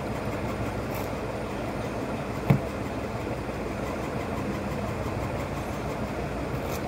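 Steady, even rushing background noise, with a single sharp tap about two and a half seconds in.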